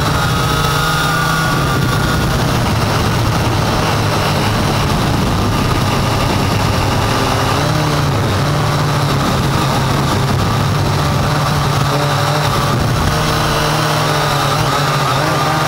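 Syma X8 quadcopter's electric motors and propellers running steadily, loud and close from the camera mounted on the drone, the pitch shifting a little up and down as the throttle changes.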